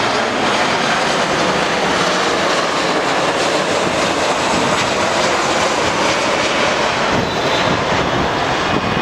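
Mumbai Metro train approaching on elevated track: a loud, steady rushing noise.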